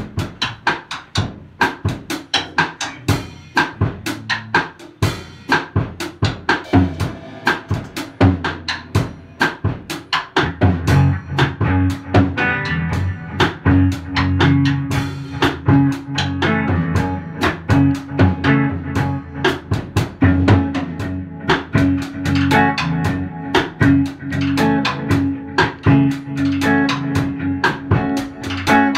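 Live drum kit and electric guitar jamming: a Fender Stratocaster through a Fender Princeton Reverb amp. The drums keep a steady beat with snare, kick and rimshots, and about ten seconds in fuller, held low guitar notes come in under the beat.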